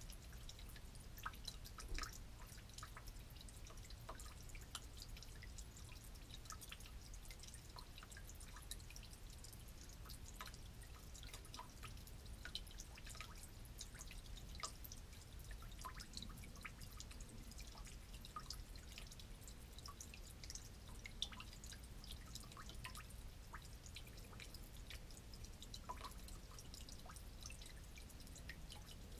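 Old gasoline dripping from a broken valve on an old generator into a drain pan full of fuel. The drips land in the liquid in a faint, continuous, irregular run of small plinks, with a few louder drops among them.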